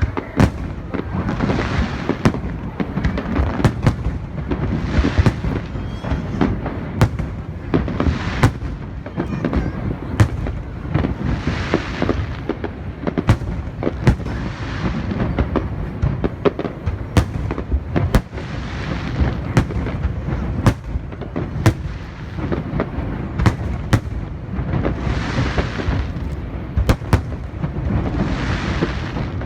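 Aerial fireworks display: a rapid, irregular run of sharp bangs over a continuous low rumble, with swells of hiss every few seconds.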